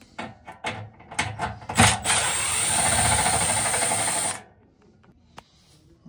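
A power driver with a 5/16 nut-driver bit backing out the screws on a furnace blower motor's mount. First come a few short clicks and knocks, then the driver runs steadily for about two and a half seconds and stops abruptly.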